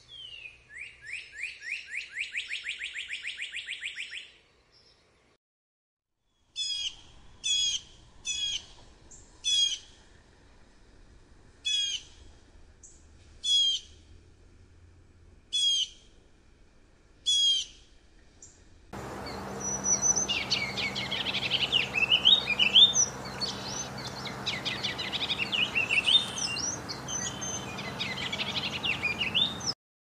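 Northern cardinal singing a fast trill of short slurred notes for about four seconds. After a pause, a blue jay gives eight short calls about a second or two apart. From about nineteen seconds in, a busier stretch of many overlapping bird chirps runs over a steady hiss.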